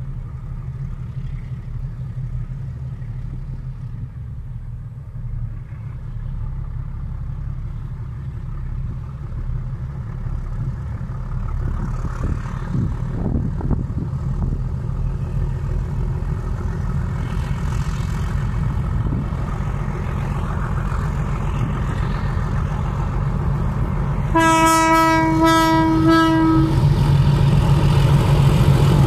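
Diesel freight locomotive's engine working hard as it pulls a train away, growing louder as it comes closer. Near the end its air horn sounds for about two seconds, in two or three short blasts.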